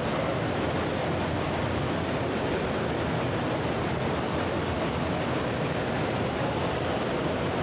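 A steady, even rushing noise at a constant level, with no single sound standing out.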